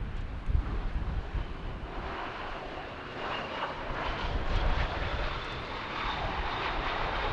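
Jet airliner's engines: a broad whooshing roar that swells in from about two seconds in and stays loud, with a faint steady high whine above it. Wind buffets the microphone during the first second.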